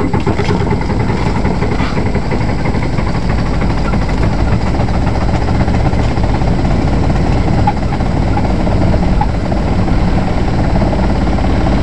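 Car diesel engine running on its own just after a hard cold start in severe frost, idling steadily without a break.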